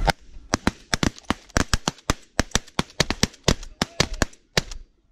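Several shotguns firing a rapid, irregular volley: about two dozen sharp shots in five seconds, some overlapping, with a short gap near the end.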